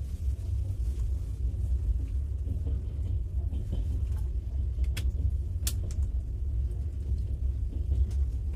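Passenger train in motion: a steady low rumble, with a few sharp clicks about five and six seconds in.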